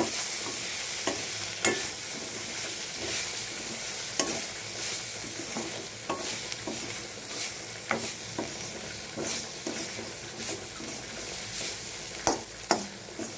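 Chopped onion, capsicum and tomato with spice powders sizzling in a steel pan as a metal spatula stirs and scrapes them, with irregular clicks where the spatula strikes the pan.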